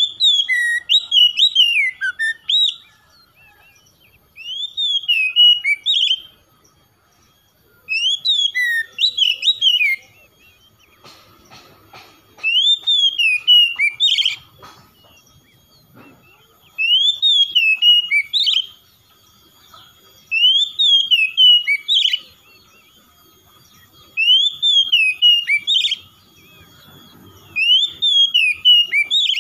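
Oriental magpie-robin singing: loud whistled song phrases of quick rising and falling notes, repeated about every four seconds with short pauses between.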